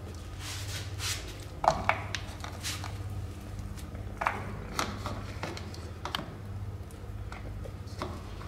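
Cat eating wet cat food from a foam tray: chewing, with several sharp clicks and smacks over a steady low hum.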